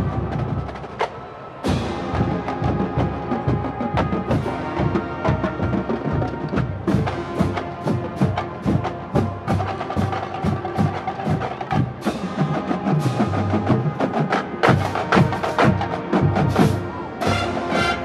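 Marching band playing a percussion-heavy passage: fast, dense drum and mallet strikes over sustained pitched notes, filling out after a sparser first couple of seconds.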